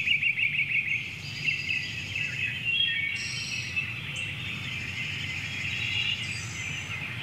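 Several wild birds singing and chirping, with a quick trilled phrase in the first second and scattered calls after, over a steady low background noise.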